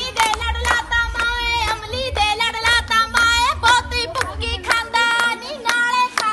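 Dance music with a singing voice over a steady beat of sharp drum strokes, about two a second, and a deep bass line.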